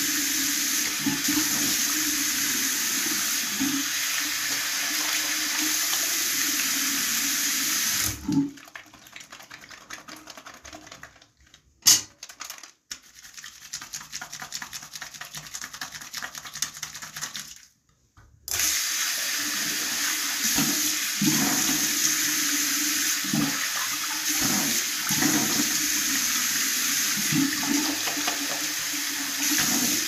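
Tap water running into a bathroom sink; it stops about eight seconds in, leaving a quieter stretch of small sounds with one sharp click, then runs again from about eighteen seconds on.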